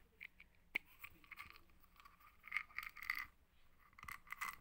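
Small plastic tablet bottle being handled and opened: a sharp click about three-quarters of a second in, then several short bursts of scraping and rattling as the cap is worked off and the tablets shift inside.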